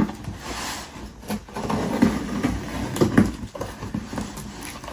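Packing tape on cardboard boxes being slit with a key and scissors: irregular scratching, tape tearing and cardboard rustling, with a few sharp taps.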